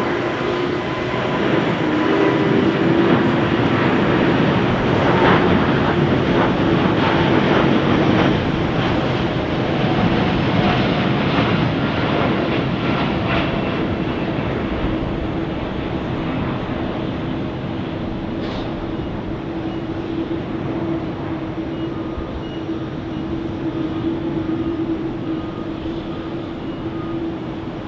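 Boeing 787-9's Rolls-Royce Trent 1000 turbofans at takeoff thrust as the airliner lifts off and climbs away: a loud jet roar over a steady low hum, crackling and loudest a few seconds in, then slowly fading as the aircraft climbs out.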